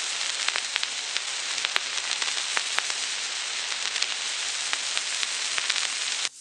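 Surface hiss and crackle of a 1929 Movietone sound-on-disc record playing on after the music has ended: a steady hiss with many irregular clicks and a faint low hum, cutting off suddenly near the end.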